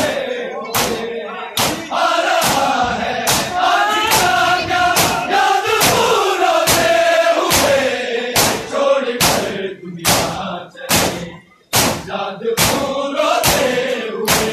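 Mourners doing matam, beating their chests with open hands in unison: a sharp slap about once a second, under a crowd chanting together. The chanting is loudest through the middle and drops away briefly about eleven seconds in.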